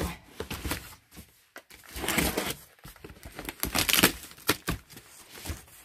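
Box cutter slitting the packing tape on a cardboard box and the cardboard flaps being pulled open: irregular scraping, tearing and rustling, loudest about two and four seconds in.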